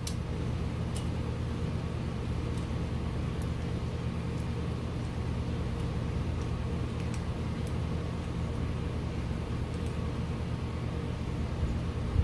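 A steady low mechanical hum, with faint small clicks now and then from small plastic and metal parts being handled at a steering wheel hub.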